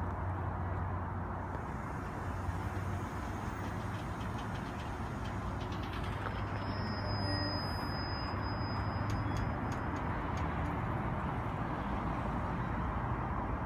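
Bilevel commuter train coaches passing close by a station platform: a steady rumble of wheels on rail over a steady low hum.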